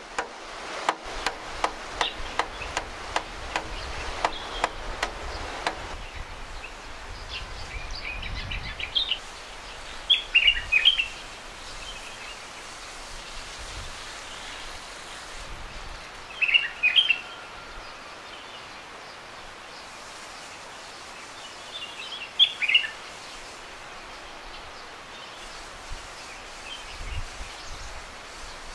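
A wooden stick rapping repeatedly on a bucket hung from a fence to scare birds off fruit trees, about three knocks a second, stopping about six seconds in. After that a small songbird calls several times, each call a short burst of high chirps.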